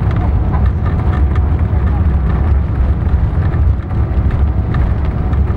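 Cabin noise of a Boeing 777-300ER on its landing rollout with the ground spoilers up: a loud, steady low rumble of engines and wheels on the runway, with light rattling.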